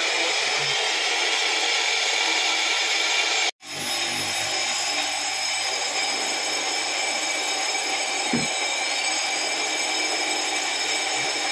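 Brake lathe facing a cast-iron disc brake rotor, the cutting bits skimming the spinning rotor's faces with a steady hissing, whining cut. The sound cuts out for an instant about three and a half seconds in, and there is one light knock later on.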